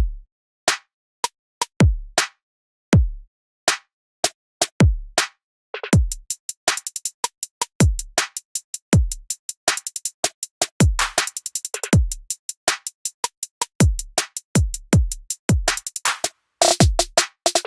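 Electronic drum-machine beat: deep kick drums that drop in pitch, with sharp clicks and hi-hat ticks. It starts sparse, gets much busier about six seconds in, and ends with rapid rolls.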